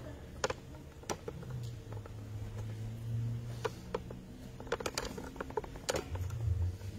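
Low, steady room hum with scattered light clicks and taps, several bunched together about two thirds of the way in.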